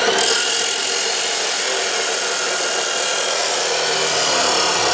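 Corded circular saw cutting through the rusty iron rim of an old wagon wheel: a loud, steady metal-cutting grind that runs without let-up.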